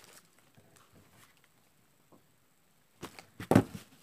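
Handling noise from squishy toys and their plastic packaging being pushed into a container by hand. It is faint at first, then louder rustling and knocks begin about three seconds in, with one sharp bump.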